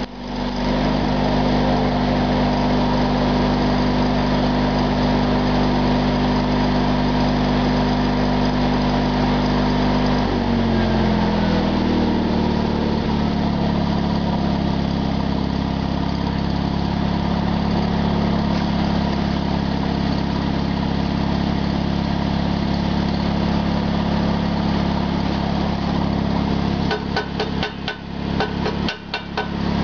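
A small engine running steadily, its pitch shifting down and settling about ten seconds in. Near the end a quick run of sharp metal taps starts over it.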